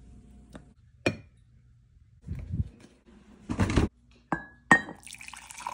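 Several sharp clinks of glass and ceramic dishware being handled and set down, the last two ringing briefly, with a short noisy burst between them.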